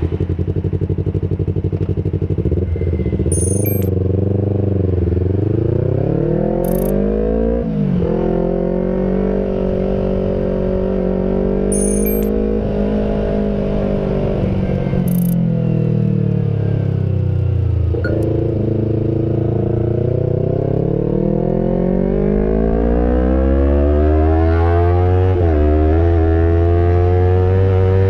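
Yamaha R25's 250 cc parallel-twin engine through a 3Tech custom exhaust while riding, its note climbing and falling back several times as the revs rise and drop, with a long climb near the end.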